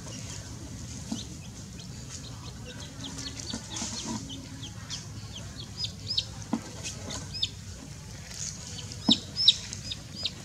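Domestic chick peeping over and over in short, high, falling peeps, the distress peeping of a chick being held by its leg. The peeps come faster and louder toward the end, with a few sharp knocks among them.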